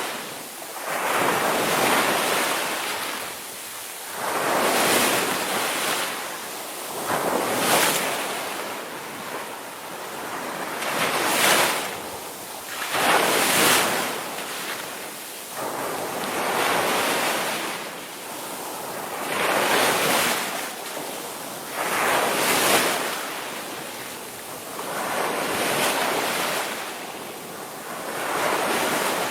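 Ocean surf: waves breaking and washing in, swelling and fading in a regular cycle with a surge about every two and a half to three seconds.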